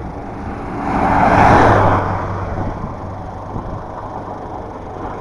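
Engine and road noise of a moving vehicle heard from inside it, steady, with a louder rushing swell that rises and falls away about one and a half seconds in.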